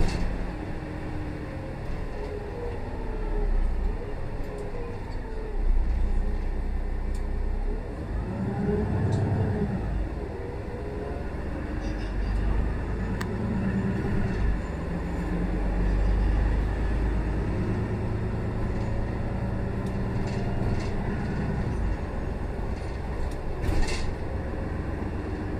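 Cabin noise of a Solaris Urbino 10.5 IV city bus under way: a low engine and drivetrain drone whose pitch rises and falls as the bus speeds up and slows. Scattered clicks and rattles from the interior fittings, the loudest near the end.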